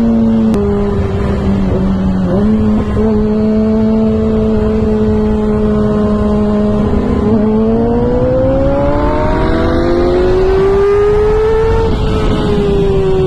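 2009 Kawasaki ZX6R inline-four sport bike engine with a full Two Brothers exhaust, holding a steady note, then revving up smoothly for several seconds as the bike accelerates in one gear, and easing off near the end. Wind rushes over the helmet microphone underneath.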